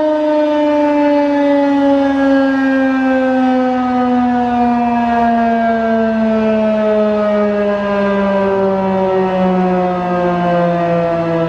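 Federal Signal 2001-SRN DC rotating siren winding down after its alert blast, its loud steady tone sliding slowly and evenly lower in pitch as the rotor coasts to a stop.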